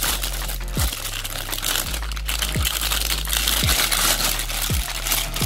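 Clear plastic wrapping crinkling and rustling as it is handled and pulled off a motorcycle helmet peak, over background music with a deep beat about once a second.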